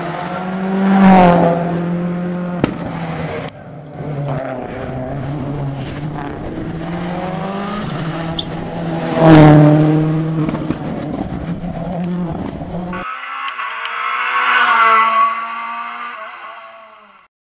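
Rally cars at full throttle on a stage passing close by, two loud passes about a second in and about nine seconds in, engine note bending in pitch as each goes by, with some tyre squeal. Near the end a duller-sounding car fades away.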